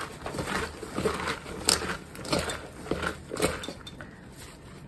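Kitchen paper towel rustling and crinkling in irregular dabs as it is pressed over damp diced eggplant in a stainless steel mesh colander, blotting the cubes dry.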